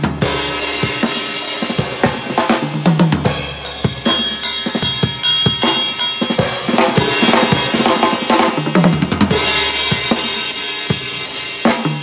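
Drum kit played hard with sticks: a busy stream of snare, bass drum and tom hits with ringing cymbals, with tom fills a few seconds apart.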